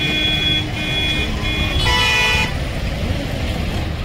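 Road traffic with vehicle horns honking: three quick high-pitched beeps, then one louder, lower horn blast of about half a second, over the steady low rumble of engines.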